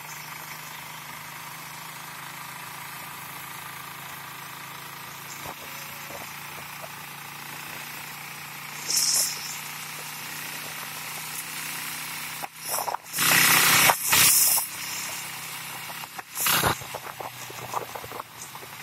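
Motorcycle engine of a tricycle running steadily under way, with loud bursts of rushing noise about nine seconds in, longer around thirteen to fourteen seconds, and again near sixteen seconds.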